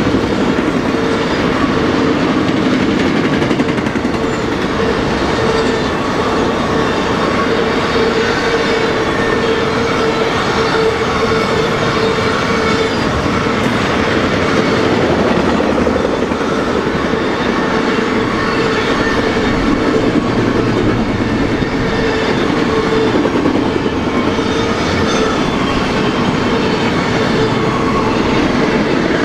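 Intermodal freight train's double-stack well cars and trailer cars rolling past, a steady rumble of wheels on rail with a steady ringing tone running through it.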